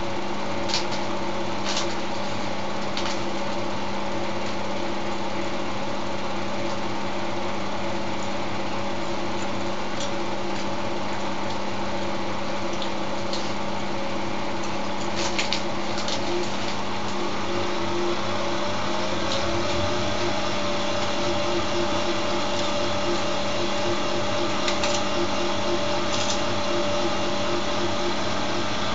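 Siemens Siwamat iQ front-loading washing machine running with its drum turning: a steady motor hum and whine, one tone rising slightly in pitch a little past halfway as the drum speeds up. A few light ticks sound now and then.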